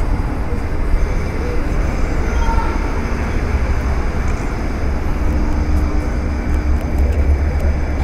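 City-street ambience: a steady low rumble of road and tram traffic.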